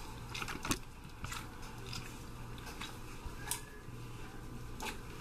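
English bulldog chewing food and smacking its lips, a string of irregular mouth clicks.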